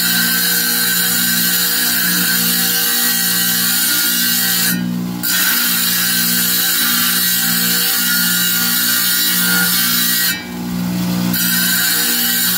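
Wet tile saw running with its diamond blade grinding the edge of a small stone held against it: a steady motor hum under a gritty high hiss. The grinding drops away briefly twice, about five and ten seconds in, while the motor keeps running.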